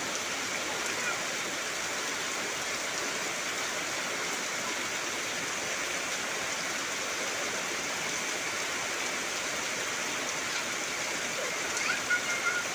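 Heavy rain falling steadily on trees, an even hiss of water. Near the end a brief high call cuts in, a few short wavering notes.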